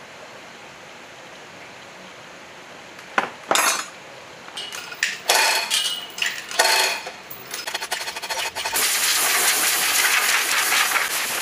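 Metal chain clinking and rattling in irregular runs as a chain hoist's hand chain is pulled, after a couple of sharp knocks. About nine seconds in, a loud steady hiss starts and continues.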